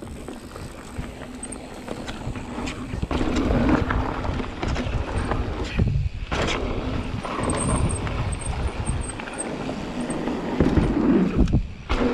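Mountain bike riding down a dirt singletrack: a steady rumble of tyres on dirt and the bike rattling over bumps, louder after the first three seconds, with a few sharp knocks.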